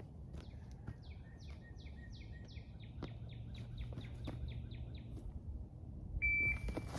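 A songbird sings a long run of repeated down-slurred chirps, speeding up as it goes. About six seconds in, an electronic shot timer gives one short, high start beep, and running footsteps follow at once.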